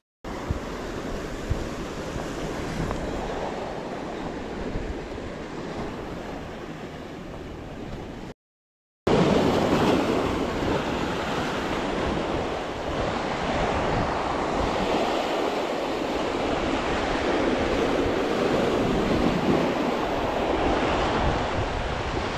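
Ocean surf breaking and washing over the rocks at the foot of a sea cliff, a steady rushing noise. It drops out briefly a little over a third of the way in and comes back somewhat louder.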